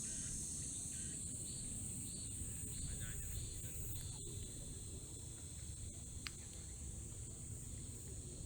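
Insects, crickets among them, singing in a steady high-pitched chorus, with a softer chirp pulsing about twice a second, over a low rumble.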